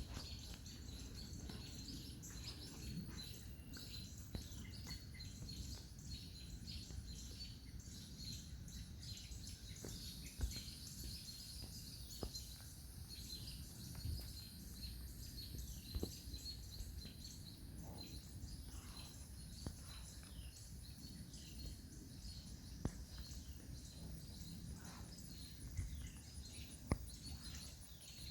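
Several songbirds chirping in short, repeated downward-slurred calls, over a steady high-pitched hum and a low background rumble. A few sharp clicks stand out now and then.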